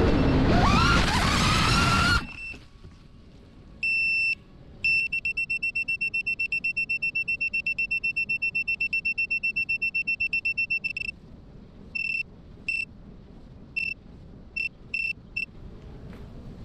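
FPV quadcopter's brushless motors whining and rising in pitch, then cutting off abruptly about two seconds in as the quad crashes into a bush. After a pause a high electronic beeper sounds: one short beep, a long run of rapid beeps, then scattered single beeps, the lost-model alarm of the downed quad.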